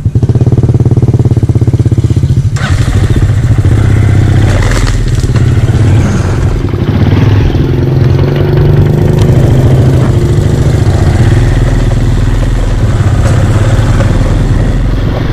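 Motorcycle engine idling with an even putter, then about two and a half seconds in it pulls away and keeps running at riding speed on a rough dirt road, with a few knocks and rattles.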